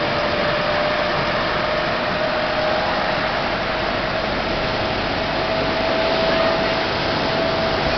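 An engine running steadily under a loud, even rushing noise, its hum holding one pitch that creeps slightly higher.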